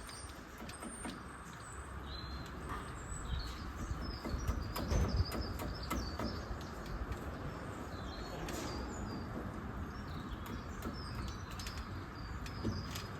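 Small birds chirping repeatedly, short high chirps scattered throughout, over a steady low background rumble with a few faint clicks.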